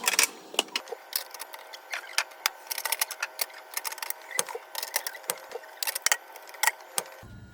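Irregular light clicks and clatter of small hard objects being handled and set down, several knocks a second at times.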